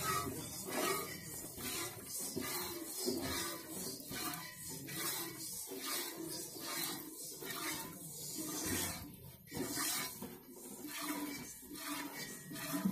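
A cow being milked by hand: jets of milk squirting into a stainless steel pot in a steady rhythm of about two short squirts a second.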